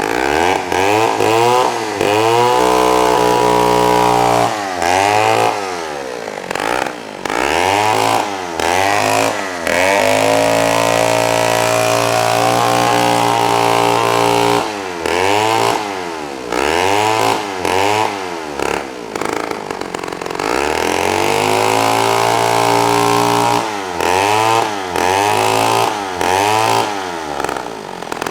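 Poulan S33 two-stroke chainsaw engine running and being revved again and again: quick rev blips about once a second, with a few longer stretches held at high revs, dropping back toward idle between.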